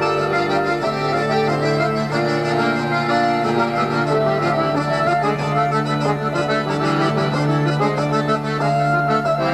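Instrumental folk dance tune played on hurdy-gurdy, button accordion and bagpipes, with a melody moving over a steady low drone.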